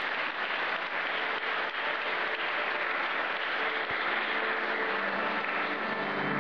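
Audience applauding in a steady, dense patter. Faint held instrument notes begin to sound under it from about halfway.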